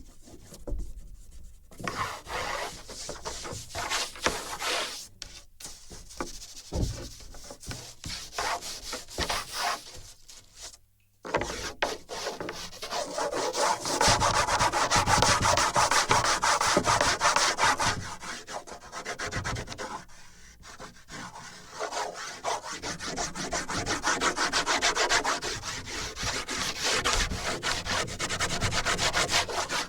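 Drawing strokes on a wooden board, picked up by contact sensors fixed to the board: scratchy rubbing strokes, broken and uneven at first, a brief silence about a third of the way in, then dense continuous rubbing that eases for a moment about two thirds in and builds again.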